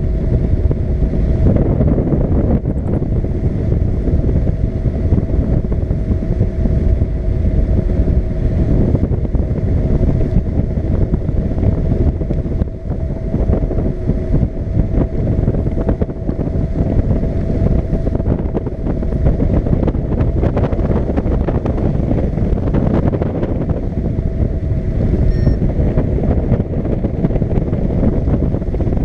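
Powered paraglider's engine and propeller running steadily in flight, a constant drone with a steady pitch, mixed with heavy wind noise on the microphone.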